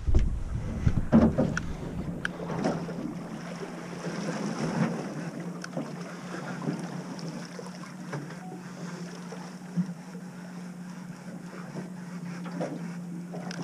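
Fishing boat's engine running with a steady low hum, with scattered knocks and clicks from gear on board.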